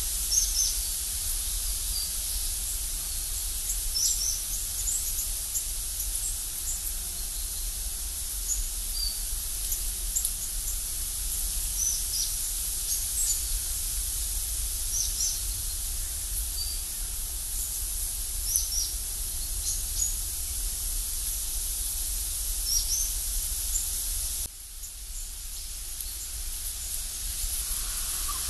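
Woodland ambience: a steady high hiss with many short, high chirps scattered irregularly through it, and a faint low rumble underneath. It drops in level for a moment about three-quarters of the way in.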